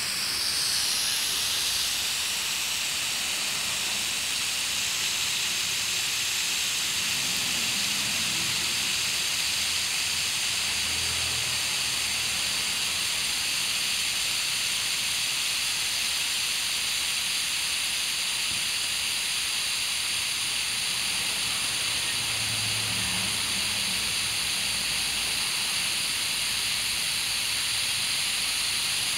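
Garden hose spraying water onto a lawn: a steady, even hiss of water.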